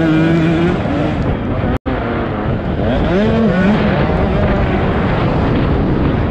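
Motocross bike engine at racing pace, its pitch climbing and falling as the throttle opens and shuts, over a dense rush of noise. The sound cuts out for an instant about two seconds in.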